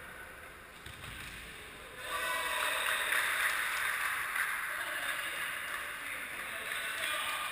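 Echoing din of an indoor futsal game in a large gymnasium, a hiss-like wash of hall noise that grows louder about two seconds in.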